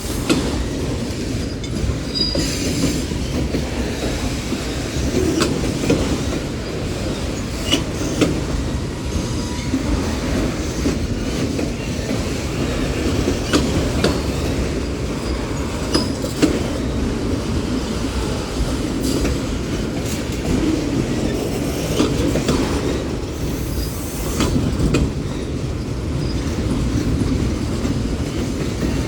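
Union Pacific freight cars rolling past close by: a steady rumble of steel wheels on rail, with irregular sharp clicks as the wheels cross rail joints and a faint wheel squeal now and then.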